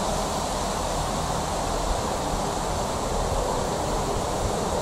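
Steady rushing noise of wind on the microphone, with the distant sound of a train approaching.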